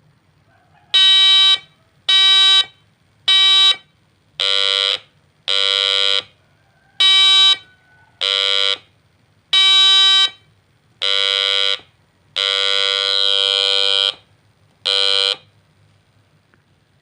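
Homemade NE555 timer doorbell circuit sounding a buzzy electronic tone through its small speaker, eleven times in short on-off bursts as the button is pressed and released. Most bursts are a little under a second and some sit at a lower pitch; the longest, nearly two seconds, comes about two thirds of the way through.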